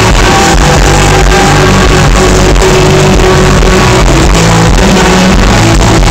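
Rock band playing live, picked up from within the crowd on a phone microphone, loud and distorted.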